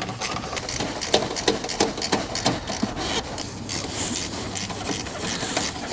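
Thermostat housing bolts being started and turned by hand: irregular small clicks and rubbing scrapes of tool and metal against the engine.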